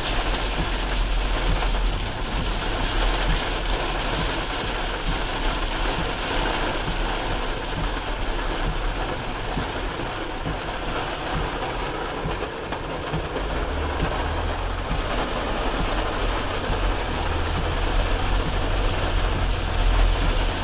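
Heavy rain pattering densely on a car's roof and windshield, heard from inside the cabin, over a low steady hum from the engine and tyres that grows stronger in the second half.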